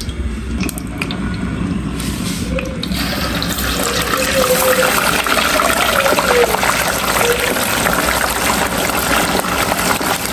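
Large fish pieces deep-frying in hot oil in an aluminium pot, sizzling and crackling steadily. The sizzle starts loud about three seconds in.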